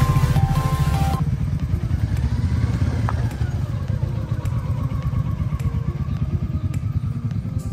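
Several motorcycles riding slowly along a dirt trail, their engines making a fast, even low thrum. There are occasional light clicks and clatter. Background music cuts off about a second in.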